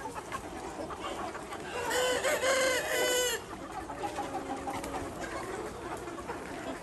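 Ho chicken rooster crowing once, about two seconds in, with softer clucking from the flock around it.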